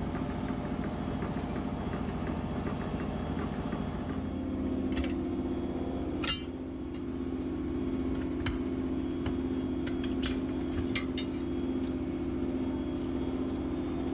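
An engine running steadily at idle, its note shifting and then settling about four seconds in. A sharp metallic clack comes about six seconds in, followed by a few lighter clicks and taps.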